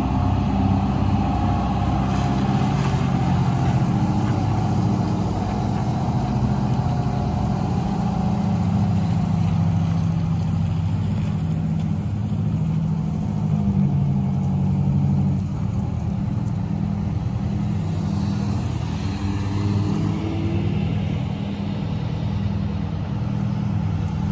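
1991 Sutphen aerial ladder fire truck's diesel engine running under load as the truck pulls out and drives away, a steady low engine note that grows somewhat quieter about fifteen seconds in.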